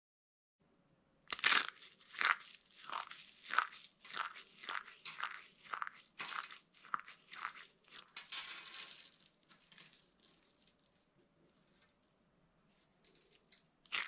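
Dry soap crushed in bare hands: a run of crisp crunches about two a second, then a longer crackle near the middle and fainter scattered crackling as it breaks into flakes.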